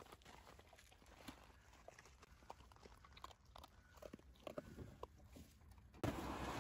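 Stray dog eating dry kibble off gravel: faint, irregular crunches and clicks of chewing. Near the end a louder steady rushing noise cuts in suddenly.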